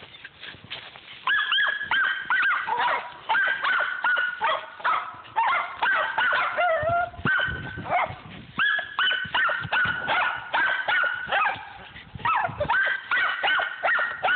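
Two squirrel dogs barking excitedly and rapidly, about two or three barks a second, baying up a tree at a treed squirrel, with a brief whine about halfway through.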